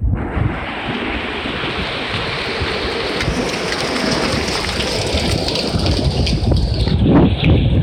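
Typhoon rain and wind: a loud, steady rushing hiss of heavy rain that begins abruptly, with wind buffeting the microphone, strongest near the end.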